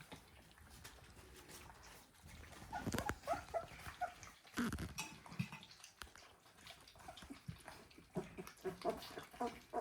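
Three-week-old North American Mastiff puppies whimpering and squeaking in many short, high calls from about three seconds in, with a few knocks mixed in.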